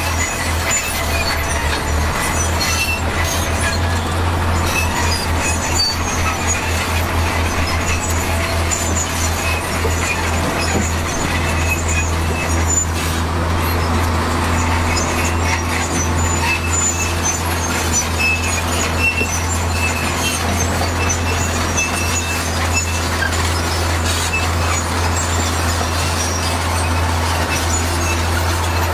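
Heavy diesel earthmoving machinery running steadily with a deep, constant engine drone, with scattered high squeaks and clinks over the top.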